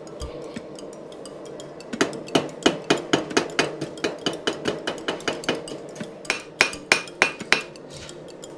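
Blacksmith's hammer forging steel on an anvil: after about two seconds a quick, even run of blows, roughly three to four a second, begins; the last several ring louder before the hammering stops near the end.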